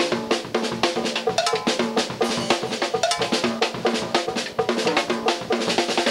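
Drum kit played with sticks in a fast, dense Cuban conga (comparsa) groove: rapid even snare strokes over bass drum, with a cowbell pattern.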